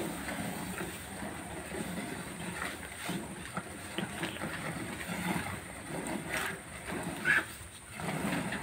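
Cow being milked by hand: streams of milk squirting from the teats into a bucket of frothy milk, in short irregular spurts, over a steady low background noise.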